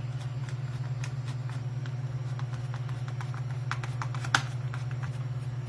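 Small clicks and taps of screws and a hand screwdriver being handled while fastening parts onto a wooden speaker box, with one sharper click about four seconds in, over a steady low hum.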